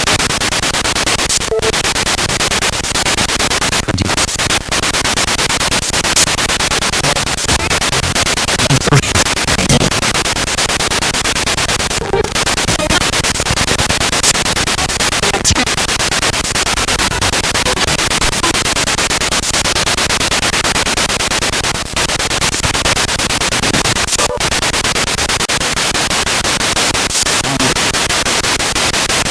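Spirit box radio sweeping through stations: loud, steady static with brief snatches of voice and music fragments cutting in and out as it passes over stations.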